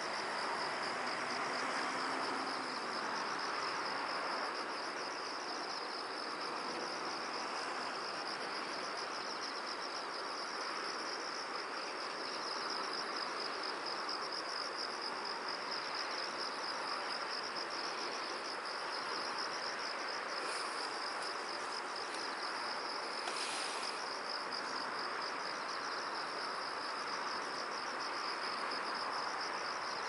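Crickets chirping in a steady chorus, a continuous high-pitched trill with fast pulsing, over a steady background hiss. A brief sharper sound cuts in once, about twenty-three seconds in.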